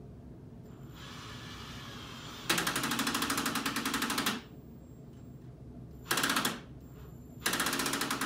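Power drill/driver driving screws into wooden boards in several bursts, each a rapid, even rattle: a softer start about a second in, a long run from about 2.5 to 4.5 s, then two short bursts near 6 and 7.5 s.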